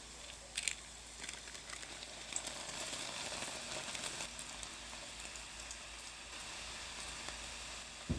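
Churro dough deep-frying in hot oil in a stainless steel pot: steady sizzling and bubbling with scattered crackling pops. A sharp click near the end.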